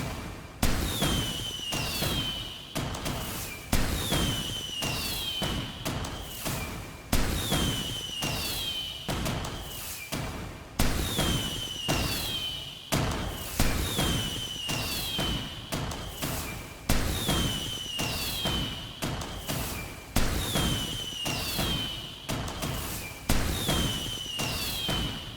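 Fireworks going off in a steady series of sharp bangs, about one every two seconds. Each bang is followed by a high whistling tone that falls and then levels off.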